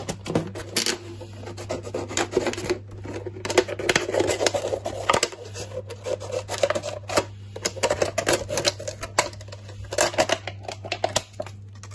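Scissors cutting a hole in a thin plastic bottle: irregular snips, clicks and crackling of the plastic. A steady low hum runs underneath.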